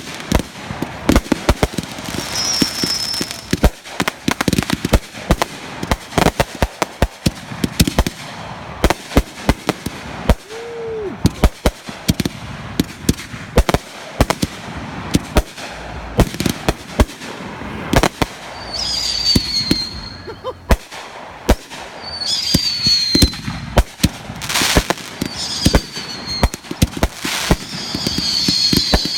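Consumer fireworks going off: a dense run of sharp cracks and bangs, with several short whistles falling in pitch in the second half.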